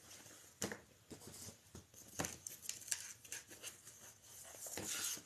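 Craft ribbon rustling and crinkling as it is handled and wrapped around a piece of cardboard, with scattered sharp clicks and a longer rustle near the end.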